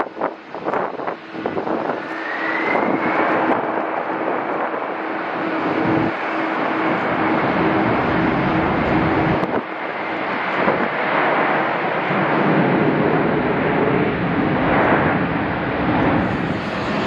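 Jet engines of a Boeing 747-400 freighter running as it rolls along the runway: a loud, steady rush of jet noise, with a brief rising whine about two seconds in.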